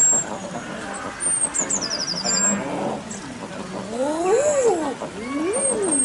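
Common eider drake calling twice in the second half, each call a cooing note that rises and then falls in pitch. A small songbird chirps high in the background early on.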